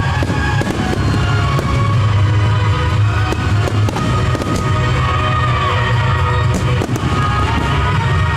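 Fireworks bursting, scattered sharp bangs over loud music with a wavering melody and a heavy low bass.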